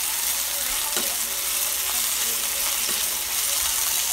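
Sliced red onions sizzling in hot oil in a skillet, stirred with a fork, with a faint knock of the fork against the pan about a second in.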